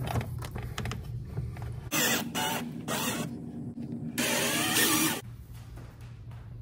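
Cordless drill/driver driving a screw into a fridge mounting bracket: light clicks of handling, then the motor runs in three short bursts, the last and longest about four seconds in.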